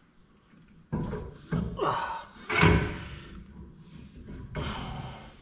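Metal clunks and knocks with scraping from a GM 10-bolt rear axle shaft being worked outward through the housing after its C-clip has been removed. The loudest knock comes about two and a half seconds in.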